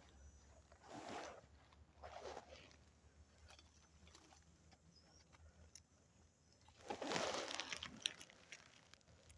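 Footsteps through dry leaf litter and undergrowth: a step about a second in, another a second later, then a longer stretch of rustling near the end.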